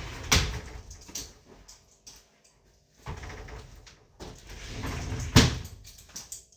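A door or wardrobe being handled: rustling with two sharp knocks, one just after the start and a louder one near the end.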